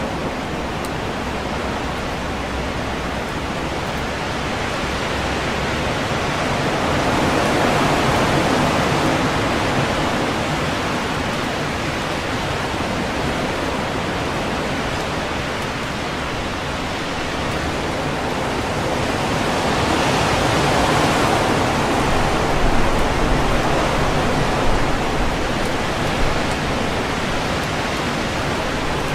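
Strong wind rushing through tree leaves in a steady roar of noise, swelling in two long gusts, with a few brief louder rustles near the end.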